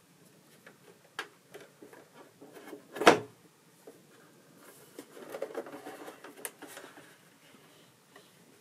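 The hinged top panel of a Yamaha DX7 synthesizer lowered shut onto its case with one loud thump about three seconds in, amid light clicks and handling rustle as the panel is moved and lifted open again.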